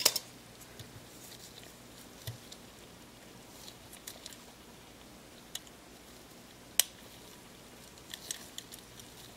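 Small clicks and ticks of a Panasonic Lumix ZS19 camera's end piece being pressed onto the body and snapping into place. There is one sharp snap about seven seconds in and a few lighter clicks near the end.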